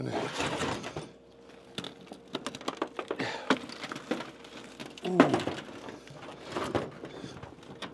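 Irregular small clicks and knocks of broken rock and packed dirt being dug out of a damaged car and dropped, with a short grunt about five seconds in.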